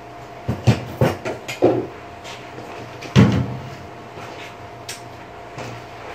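Handling knocks of a plastic backpack leaf blower being shouldered and moved about, engine off: a quick run of clunks and rattles in the first two seconds and a louder thump about three seconds in.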